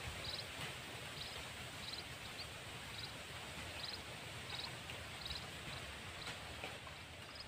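Outdoor ambience: a steady hiss, with a short, high, trilled chirp repeating about every half second to a second.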